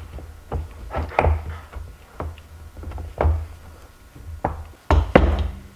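Irregular knocks and clicks of a hand plastisol injector being pressed and twisted in a metal soft-plastic bait mold.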